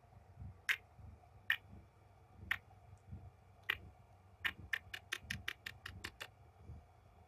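Sharp, smacking lip kisses pressed against a newborn kitten: four single smacks about a second apart, then a quick run of about a dozen, several a second, a little past halfway.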